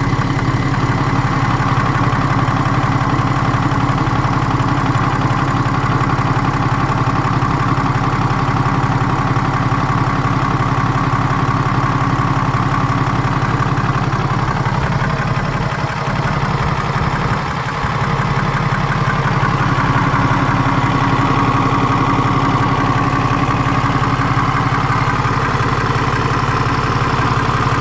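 BMW N57 diesel inline-six idling with an unexplained knocking noise that shows up only at idle, coming and going suddenly, even though the crankshaft and connecting-rod bearings, timing chain, belt tensioner and idler pulley are new. The running sound dips and changes briefly around the middle.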